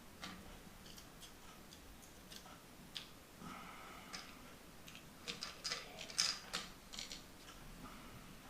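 Faint, scattered small clicks and taps of plastic parts and a small tool being handled inside an opened Joy-Con controller while a replacement joystick is fitted, with a quick cluster of clicks about five to seven seconds in.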